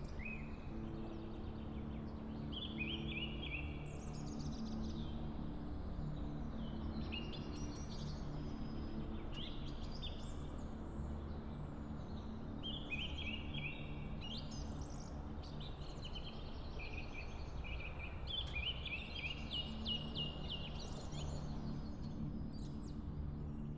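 Small songbirds singing in woodland, short chirping phrases of quick stepped notes repeating every few seconds, over a low steady hum.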